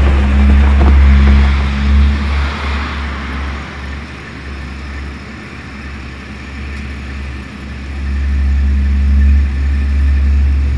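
Car engine idling with a deep, steady rumble that eases off in the middle and builds up again near the end.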